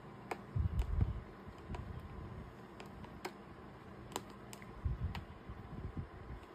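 Faint, irregular light clicks, with a few soft low thumps about a second in and again near five seconds.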